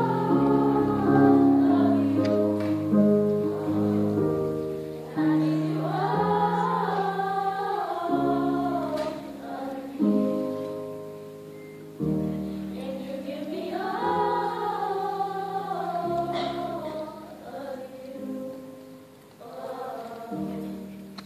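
Sixth-grade children's choir singing together, voices holding notes and sliding between them, getting quieter over the last few seconds.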